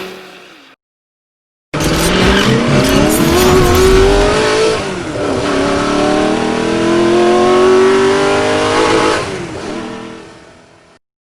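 Car engine accelerating hard: its pitch climbs, drops once about halfway through as at a gear change, climbs again and holds high, then fades out near the end.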